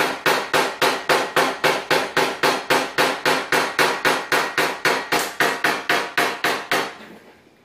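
Hammer tapping a paintless-dent-repair knockdown punch against a car fender's sheet metal, quick even taps about five a second, each with a short metallic ring; the tapping stops about seven seconds in. The taps knock down the raised ridge and edges of a dent so they become smooth.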